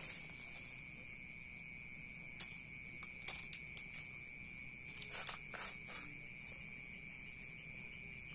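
Night insects chirring steadily in two high tones, with a few soft scratches and clicks of fingers spreading and pressing grainy sand and soil on the surface of a bonsai pot.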